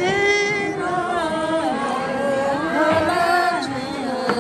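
Women singing unaccompanied, a slow tune with long held notes.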